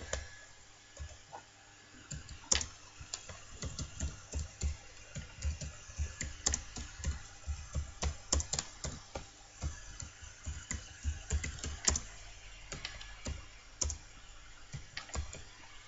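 Typing on a computer keyboard: a run of irregular keystroke clicks that starts about two seconds in.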